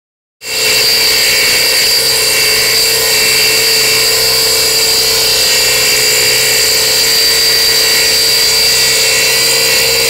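Ryobi 16-inch variable-speed scroll saw running steadily, its reciprocating blade cutting through a thin wooden board: a constant hum with a high whine over the rasp of the cut. The sound drops out for a moment at the very start, then runs evenly.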